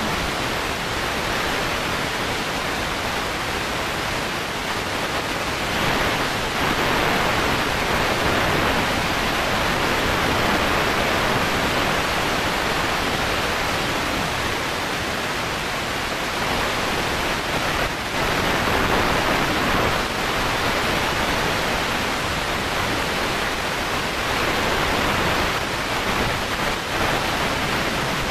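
Cabin noise of a VW Beetle race car driven flat out on a gravel bilcross track: engine, tyres and gravel blend into one loud, steady rushing noise with no clear engine note.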